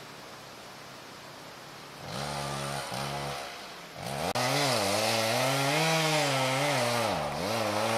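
Two-stroke chainsaw comes in about two seconds in at a low speed. About four seconds in it speeds up and runs loudly, its pitch rising and falling as it labours through a felling cut in a standing tree.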